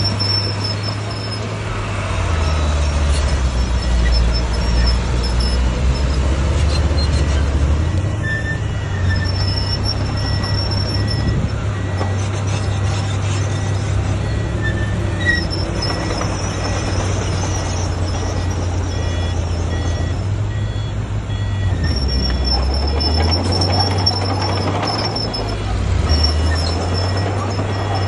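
Diesel engine of a Komatsu crawler bulldozer running steadily, its pitch dropping and rising several times as the load changes. A thin high squeal comes and goes over it, and faint rapid beeping is heard through the middle.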